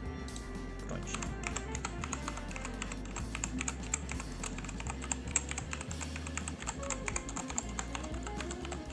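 Rapid typing on a Redragon Fizz K617 60% mechanical keyboard with brown switches: a quick, irregular run of key clicks starting about a second in, over background music.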